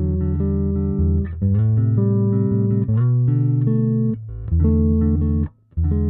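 Vanzandt PBV-R2 electric bass played through a GR Bass Pure Amp 800 head and a miked Darkglass DG-210N cabinet: a line of held notes that change pitch every second or so. There is a short break about five and a half seconds in, then a last note that rings on.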